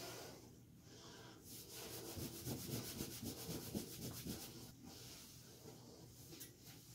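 Towel rubbing wet hair dry: a faint, irregular scrubbing that starts about a second and a half in and dies down after about three seconds.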